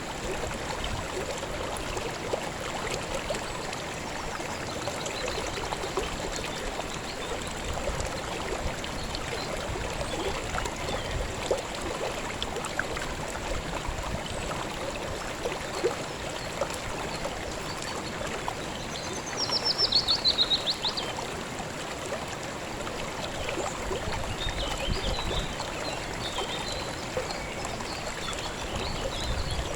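River water flowing and trickling steadily. About two-thirds of the way in, a bird gives a loud, rapid trill that falls slightly in pitch for a second or two, and fainter high chirps follow near the end.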